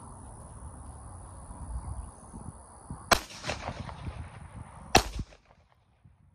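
Two shots from a Glock 30 .45 ACP pistol, about two seconds apart, the first a little over three seconds in and the second about five seconds in, each followed by a short echo, over a low background rumble.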